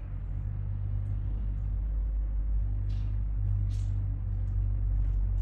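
Carpet-cleaning machine running with a steady, low rumbling hum that comes up at the start, and a few light clicks along the way.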